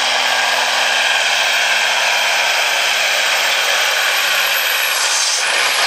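Semi tractor's diesel engine running flat out under heavy load as it drags a pulling sled, a loud, steady roar through its straight stacks. A thin high whine slowly falls in pitch during the second half.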